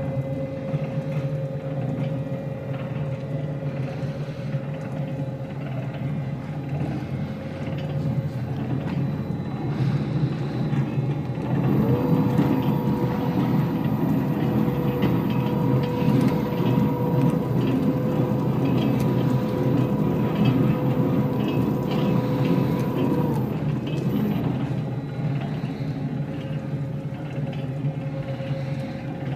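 Berkel FMS60 60-quart bowl mixer running empty, its electric motor driving a flat beater in the stainless steel bowl: a steady mechanical hum with a whine. For about twelve seconds in the middle it is louder, with a different whine.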